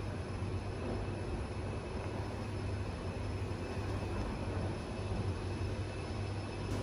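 Otis Gen2 Regen machine-room-less lift car travelling upward between floors, heard from inside the car: a steady low hum and rumble with a faint, steady high-pitched whine.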